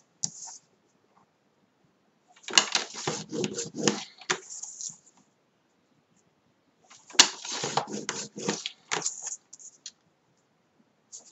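A paper trimmer's blade head is slid twice along its rail to score green cardstock for a fold, each pass a scratchy, clicking slide of about two seconds.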